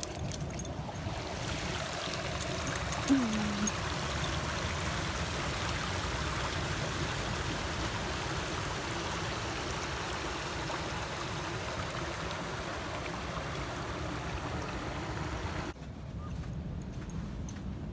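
Small creek of shallow water running over beach gravel, a steady rushing trickle that drops away suddenly near the end.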